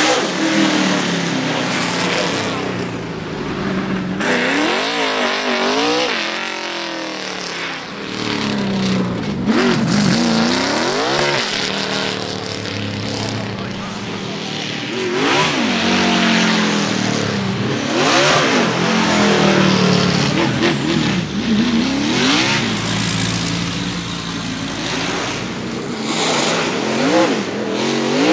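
NASCAR stock cars' V8 engines running at low speed and blipping the throttle, the revs rising and dropping back again and again every few seconds.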